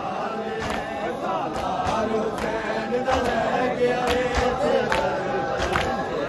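A large group of men chanting a Punjabi noha together, with the rhythmic slaps of matam: open hands beating on bare chests in time.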